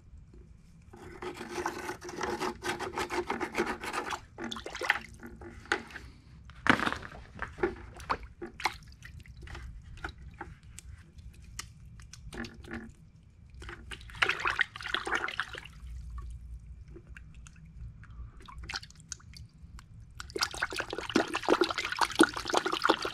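Hands and slip-joint pliers working in a bucket of water, splashing and sloshing with scattered clicks and knocks, as the softened investment plaster is broken away from a quenched silver casting. The water noise grows louder and continuous near the end.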